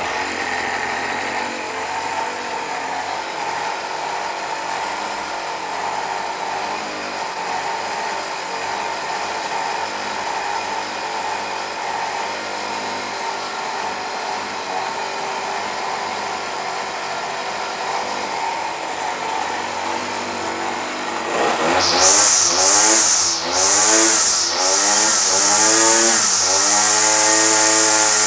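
Champion CG430B brush cutter's small two-stroke engine on a test run after servicing: it catches and idles steadily, then about 21 seconds in is revved up repeatedly with the throttle, the pitch climbing and dropping several times before running high near the end.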